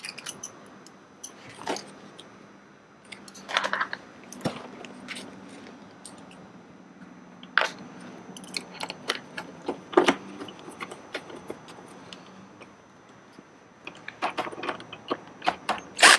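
Hands working a small hand tool and plastic trim clips on a leather seat cover, making scattered sharp clicks and taps, with a quick run of louder clicks near the end.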